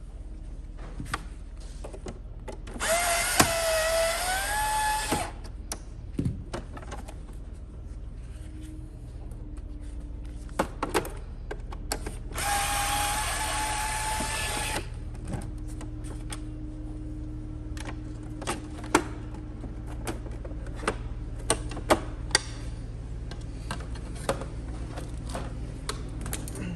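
Power screwdriver backing out the screws of a robotic pool cleaner's housing: two runs of about two seconds each, the motor whine rising in pitch near the end of the first. Scattered light clicks and taps follow as screws and parts are handled.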